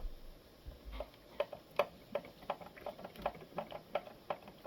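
A run of light, sharp mechanical clicks, about three a second, made by hand-worked parts of a coffee machine under repair.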